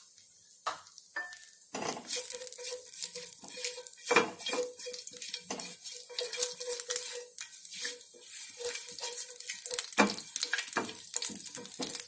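Cumin seeds sizzling in hot mustard oil in a non-stick pan while a spatula stirs them, scraping and knocking against the pan. The stirring clatter starts about two seconds in.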